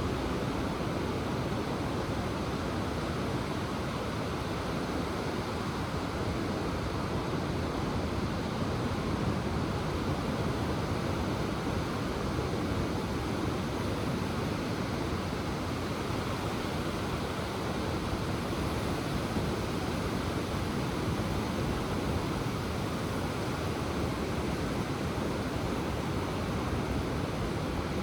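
Ocean surf breaking and washing ashore in a steady, continuous wash with no distinct separate swells.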